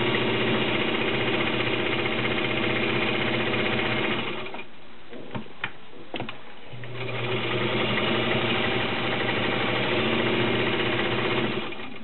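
Vintage Atlas straight-stitch sewing machine, driven by its 1.2 amp motor, running and stitching through fabric with an even, rapid beat. It runs for about four seconds, pauses briefly with a couple of light clicks, then runs again for about five seconds and stops near the end.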